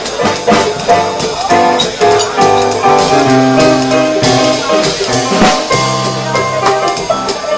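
Digital piano music with a steady drum beat behind it.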